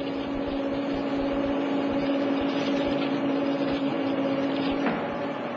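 Metal-turning lathe running as the cutting tool feeds along the bed, turning a cylindrical surface on the work. It makes a steady machine hum over a hiss of cutting noise, and the lower tone of the hum stops near the end.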